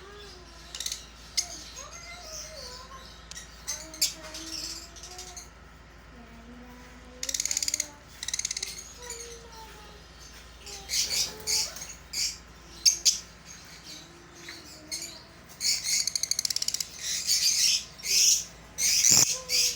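Parrots calling: repeated short, loud calls, coming more often in the second half, over fainter wavering whistles.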